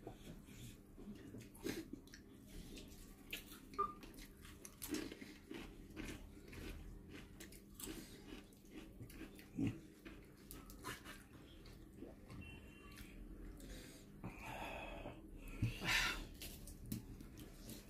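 A man eating malai prawn curry and rice with his fingers: soft chewing and mouth sounds, with small clicks of fingers and food on the plate. A few louder noisy bursts come near the end.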